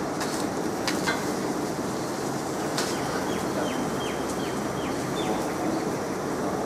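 Steady city street traffic noise, with a few sharp clicks about a second in and again near three seconds, then a bird calling six quick, short falling chirps in the middle.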